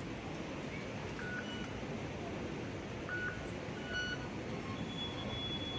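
Short electronic beeps from MTR fare-gate Octopus card readers as passengers tap through, several times, over a steady background hum of a busy station concourse.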